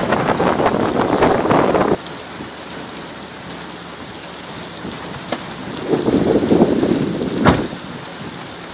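Heavy rain: a loud rush that drops away abruptly about two seconds in, leaving a steady hiss of rainfall. Near the end a low rumble swells and ends in one sharp crack of thunder.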